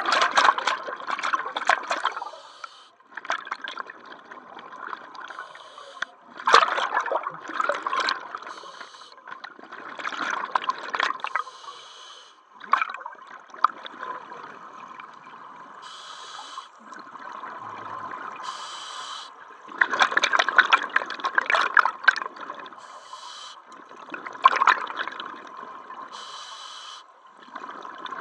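Scuba diver breathing through an open-circuit regulator underwater. Exhaled bubbles rush out in loud gurgling surges every few seconds, and the regulator gives a short high hiss on each inhale between them.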